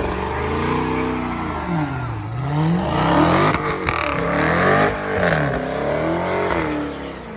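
A car engine revving hard, its pitch rising and falling about four times.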